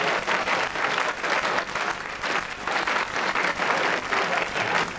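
Theatre audience applauding: steady clapping from many hands.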